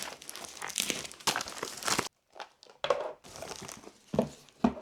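Parcel packaging crinkling as it is unwrapped by hand: about two seconds of continuous rustling, a short pause, then a few more crinkles and light knocks.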